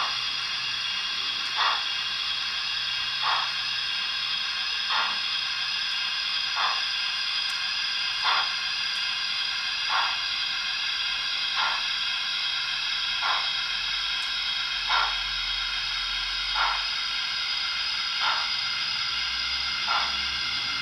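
Digital steam sound from a ZIMO sound decoder in a Hornby OO gauge Princess Coronation Pacific, played through the model's small speaker: a steady steam hiss with slow, evenly spaced exhaust beats about every one and a half to two seconds as the locomotive crawls along.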